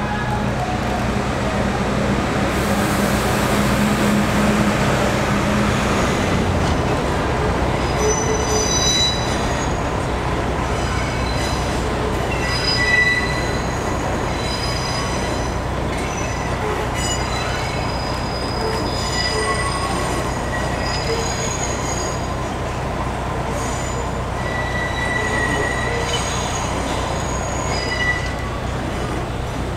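R62A subway train rolling slowly through the yard, its wheels giving off short, scattered high-pitched squeals over a steady low rumble. This is wheel squeal on curved yard track.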